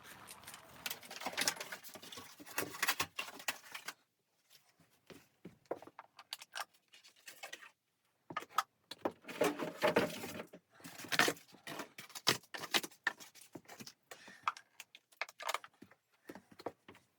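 Irregular rustling and crinkling with light clinks and ticks, in two busy stretches with sparser clicks between, as of gear or material being handled close by.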